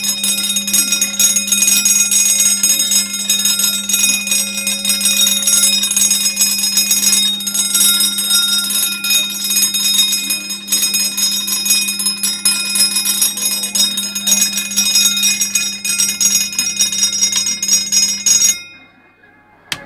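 A bell ringing continuously with rapid, closely repeated strikes, cutting off suddenly near the end.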